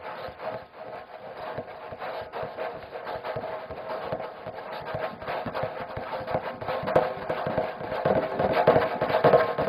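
Music with busy percussion, a dense run of knocking strokes over a steady pitched drone, growing louder toward the end.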